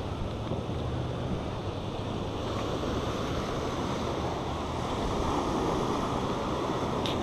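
Ocean surf washing onto the beach, a steady rushing that swells slowly, with some wind on the microphone.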